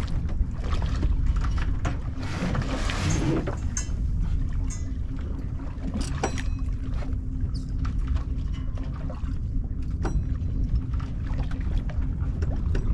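Steady low rumble and hum of a sailboat under way, with scattered clicks and knocks of rigging and fittings as the mainsail is hoisted.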